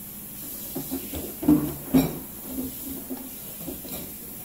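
Someone eating noodles close to the microphone: irregular chewing and slurping mouth noises, with two sharper, louder ones about a second and a half and two seconds in.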